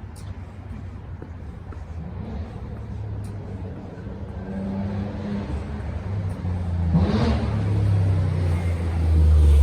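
Street traffic: a car's engine growing steadily louder as it approaches, with a short rise in engine pitch about seven seconds in.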